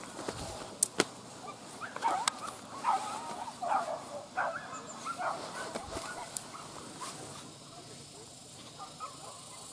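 Hunting dogs barking and yelping, a run of short barks that starts about two seconds in and lasts some four seconds, with a few sharp clicks near the start.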